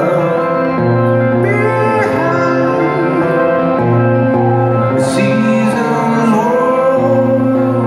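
Live rock band playing a slow song, with held guitar chords and a singing voice, recorded from the audience in a large arena hall.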